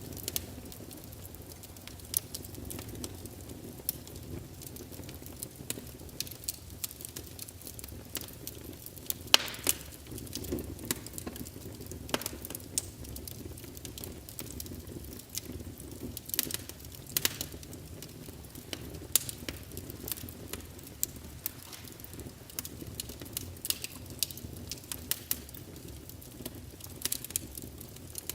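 Wood fire crackling in a fireplace: a steady low rumble of flames under irregular sharp pops and snaps, one louder pop about nine seconds in.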